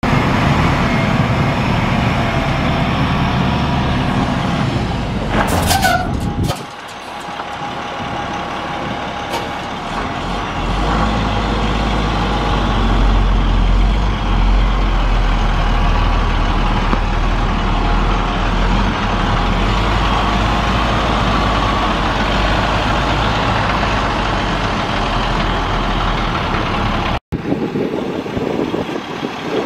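2002 International 4300 truck's International DT466 inline-six turbo diesel running steadily, with a short hiss about five seconds in.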